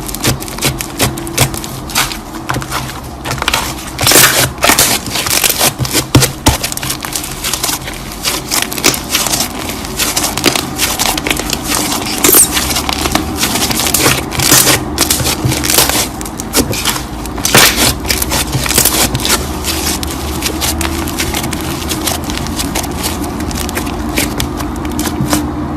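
Slime being squished and kneaded by hand, a dense irregular crackle of sharp pops and clicks, thinning out toward the end, over a steady low hum.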